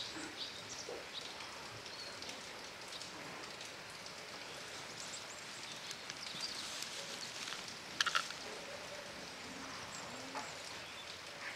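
Steady rain falling on the cattle shed's roof and the wet yard, with a short, sharp sound about eight seconds in.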